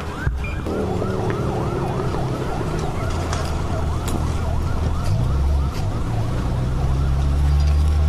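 Emergency vehicle siren in a fast yelp, sweeping up and down about three times a second, over a low rumble that grows louder toward the end.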